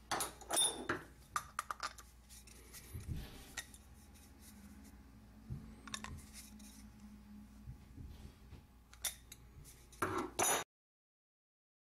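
Small metal clicks and clinks of tools and parts being handled while a castle nut is fastened onto the brass screw of a drywall taper's plunger. The clicks are densest just after the start and again about ten seconds in, then the sound cuts out abruptly to dead silence.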